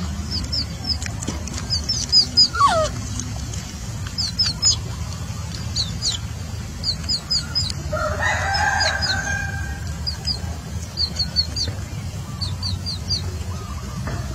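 A chicken chirping repeatedly in short, high, falling notes, in quick runs of two to four, with a burst of clucking about eight seconds in and a couple of lower falling squeals, over a steady low rumble.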